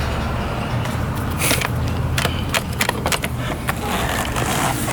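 Wiring and plastic parts clicking and rattling as they are handled, in a quick irregular run of sharp clicks, over a steady low rumble.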